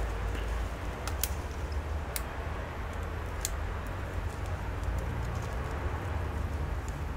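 A handful of light plastic clicks as gloved fingers work a flat ribbon cable into its connector on a laptop motherboard, over a steady low hum.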